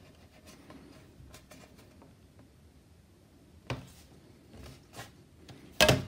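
Plastic bottom cover of an HP 14-df0013cl laptop being pried off by hand, its snap-in clips releasing: soft handling with faint clicks, a sharper click a little past halfway, and a loud snap near the end as the cover comes free.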